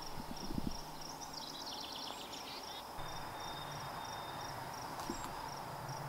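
Countryside ambience: a high, evenly pulsing trill runs throughout, with a short run of rapid high chirps about a second and a half in. There are a few low rumbles near the start.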